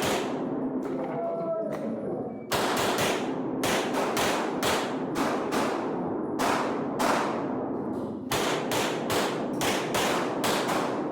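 Rapid strings of 9mm pistol shots from a Glock 19, fired at about two to three shots a second with short breaks between strings, echoing in an indoor range.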